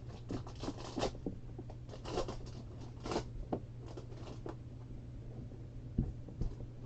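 Irregular short crinkles and rustles of a foil trading-card pack being torn open and the cards handled and slid against each other, with a small knock near the end.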